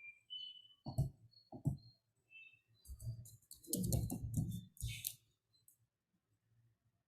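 Faint, irregular clicking and tapping of computer keys and a mouse, a few single clicks at first and then a quick cluster in the middle, with a few brief high chirps among them.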